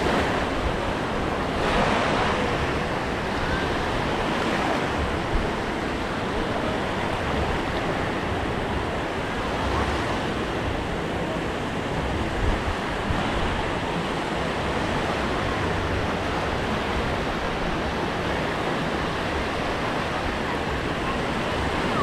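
Small waves washing onto a sandy shore, a steady wash of surf with a slight swell about two seconds in, and some wind rumble on the microphone.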